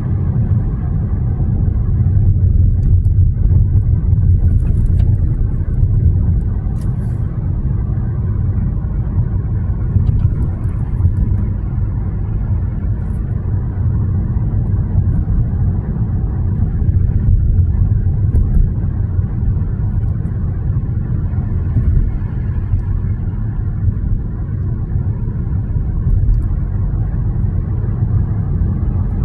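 Car driving on a paved road: steady low rumble of tyre and engine noise, heard from inside the car.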